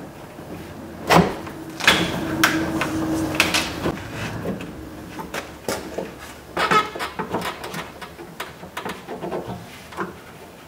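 Rear car door's rubber window channel and glass being pulled and worked loose in the door frame: a series of knocks and clunks, with a squeaking rub from about two to three and a half seconds in, then smaller knocks tapering off.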